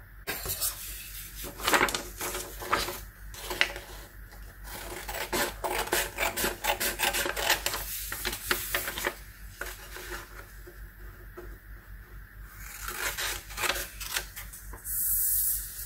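Scissors cutting a sheet of printer paper, with short snips and the rustle of the paper being handled and turned; a louder rasping stretch near the end.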